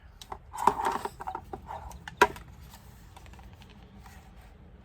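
Paper and craft materials being handled: rustling and light clicks, with one sharp click a little over two seconds in.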